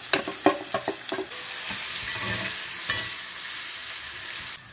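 Grated coconut, dried red chillies and spices roasting in a cast-iron pan for a sambar masala. Metal clinks and scrapes against the pan in the first second or so, then a steady sizzle as it is stirred, with one more clink about three seconds in. The sizzle cuts off suddenly just before the end.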